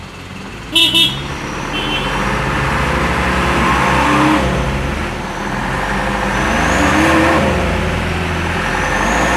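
Diesel dump-truck engines working hard under the load of an overloaded truck being towed, revving up and down in pitch. Two short horn toots sound about a second in.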